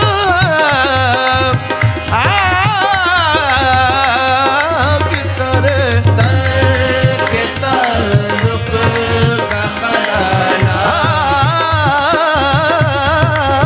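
Sufi qawwali music: tabla keeps a steady rhythm under a wordless, ornamented melodic line that slides and wavers in pitch.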